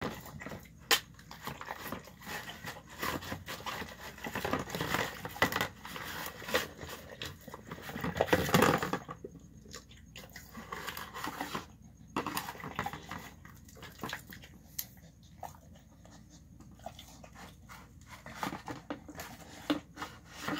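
A dog eating chicken bone nubs with brown rice and celery from a plastic tub, with crunching chews and sharp clicks. It is busy and dense for the first nine seconds or so, loudest just before that point, then sparser and quieter.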